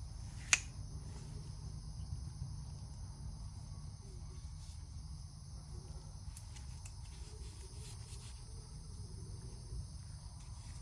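Quiet background of a steady low hum and a faint, steady high-pitched chirring of crickets. One sharp click comes about half a second in, and a few faint light ticks follow later.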